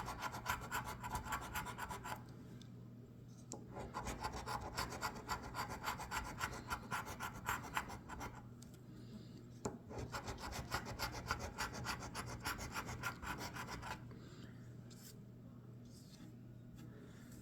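Kentucky Lottery 2024 Doubler scratch-off ticket being scratched, rapid scraping strokes across the latex coating in three stretches with short pauses between, fainter near the end.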